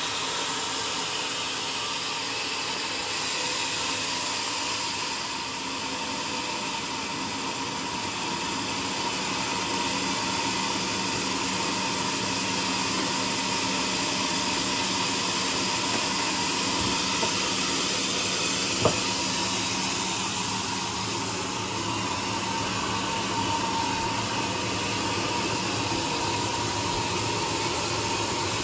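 Band sawmill running steadily: a constant whine and hiss from its motor and band blade. One sharp knock about two-thirds of the way through.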